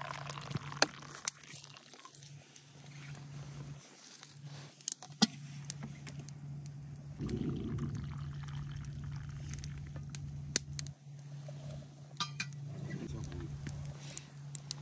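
Glasses and dishes clinking at breakfast, a scatter of sharp light clinks and knocks over a steady low hum.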